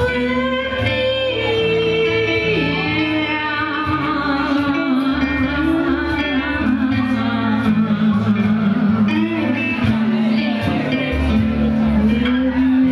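Live band playing: a violin carries a sliding, held melody over strummed acoustic guitar, electric guitar and a cajón beat.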